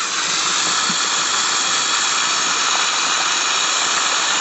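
Bathroom sink faucet running, a steady stream of water splashing into the basin with an even hiss.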